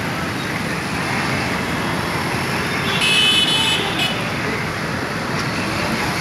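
Road traffic on a wet street: auto-rickshaws, motorbikes and cars passing with a steady wash of engine and tyre noise. A short, high-pitched vehicle horn sounds about three seconds in.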